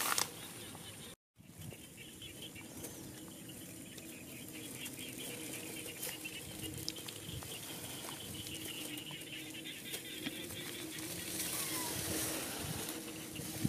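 Rice plants rustling as macaques push through them, over a soft steady outdoor background. The sound drops out for a moment about a second in.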